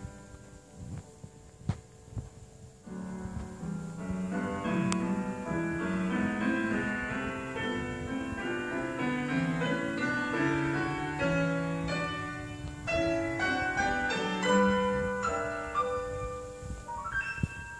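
Piano music: a few quiet notes, then from about three seconds in a busier flowing passage of many notes.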